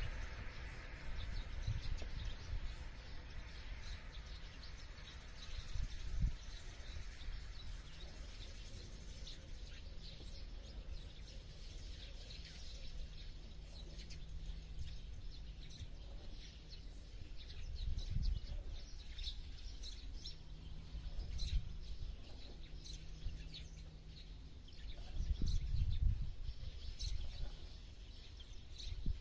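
Small birds chirping and calling, many short high chirps scattered throughout and busier in the second half, over a low rumble that swells a few times.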